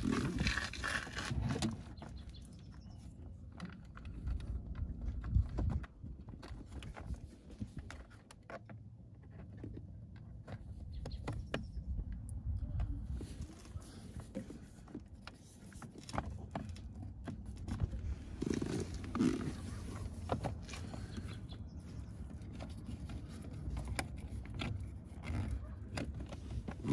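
Hands working the plastic steering column shroud halves of a Jeep Cherokee XJ back into place, with scattered light clicks and knocks of plastic under a low, uneven rumble of handling.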